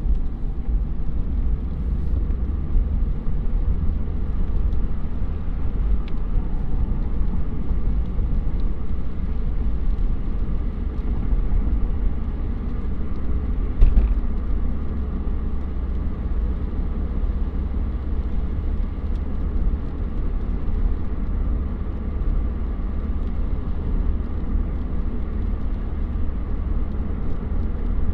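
Steady low rumble of a car's engine and tyres on a wet road, heard from inside the cabin, with a brief louder knock about halfway through.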